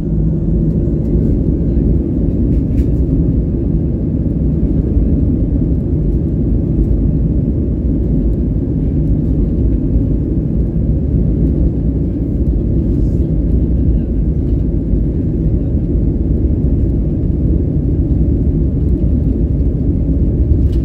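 Steady low rumble inside the cabin of an Airbus A319-115 rolling on the ground: its CFM56 jet engines at low power and the wheels on the pavement, with no rise in pitch.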